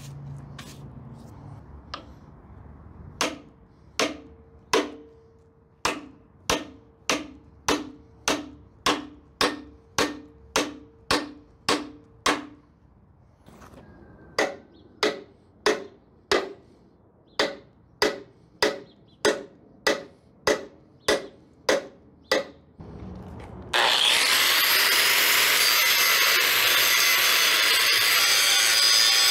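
A hammer strikes the bent steel frame of a bunker door about two times a second to straighten it, each blow ringing like metal, with a short pause partway through. Near the end an angle grinder starts and cuts into the steel rail, steady and much louder than the hammering.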